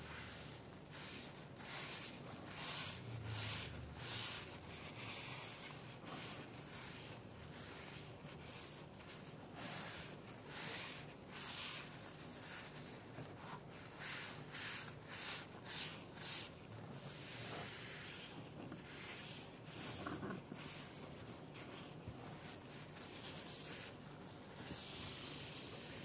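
Hand scraping or sanding on a small diecast model-car part: short, hissy strokes in an irregular series, about one or two a second, thinning out in the last third.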